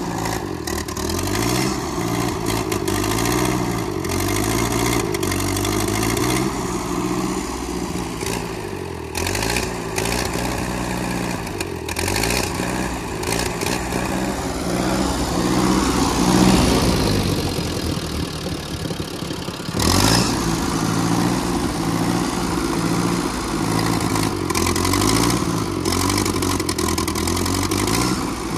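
Ford half-track tractor's engine running under load in deep snow, its speed rising and falling again and again, with a sharp knock about two-thirds of the way through.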